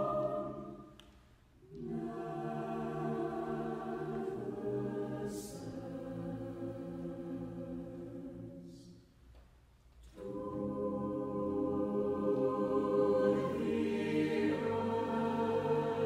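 Choir singing slow, held chords in long phrases. The sound fades away about a second in and again around nine seconds in, each time coming back with a new phrase, and the last phrase swells.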